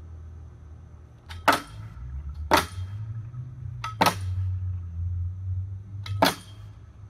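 Four sharp clanks, spaced one to two seconds apart, from a metal pipe pull-up bar knocking in its wooden posts as a man swings on it, over a low steady rumble.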